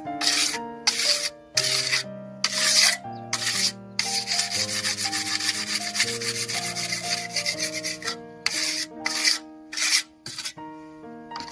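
Steel trowel scraping over wet cement in repeated irregular strokes, pressing the surface smooth, over background music.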